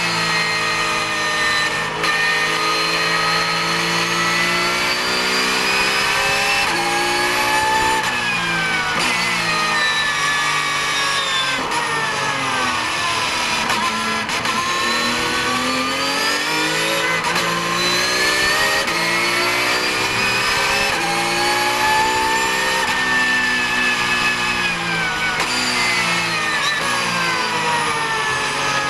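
Porsche 991 GT3 Cup car's flat-six racing engine heard from inside the cockpit, its note climbing and falling in long sweeps as the driver works through the gears. The revs sink to their lowest about halfway through as the car slows to around 64 km/h, then rise again as it accelerates and ease off once more near the end.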